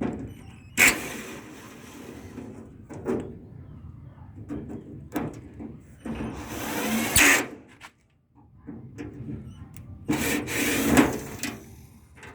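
Hand work on a lock mechanism: three loud stretches of scraping or rubbing, with small clicks and knocks between them.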